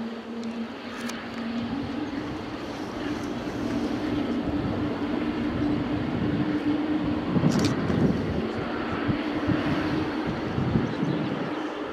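Boeing 777-300ER's GE90-115B jet engines running at taxi power, a steady jet rumble with a low humming tone, as the airliner taxis. A short sharp click about two-thirds of the way through.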